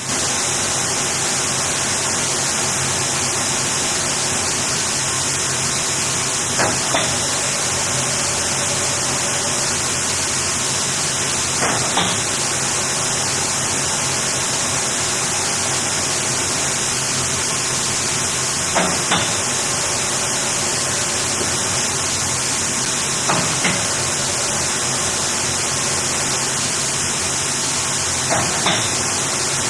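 Automatic self-cleaning centrifuge (US Centrifuge A262) going through its clean cycle: a loud, steady hiss with a pair of short knocks about every five seconds.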